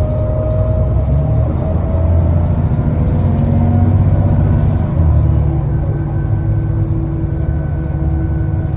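Heuliez GX 427 articulated bus accelerating hard under kickdown: a loud diesel engine rumble with whining drivetrain tones that rise in pitch, and a change in the engine note about five seconds in.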